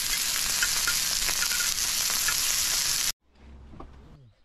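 Chunks of meat sizzling on a hot round griddle pan, with a few light clicks of metal tongs turning them. The sizzle cuts off suddenly about three seconds in.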